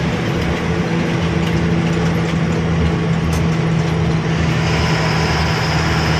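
Heavy goods truck's diesel engine running steadily on the road, a constant low drone with road noise, heard from inside the cab. A faint high whine joins about four and a half seconds in.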